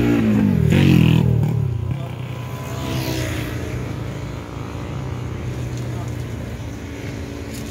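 A vehicle engine falls in pitch and loudness over the first two seconds, then runs on steadily at a lower pitch.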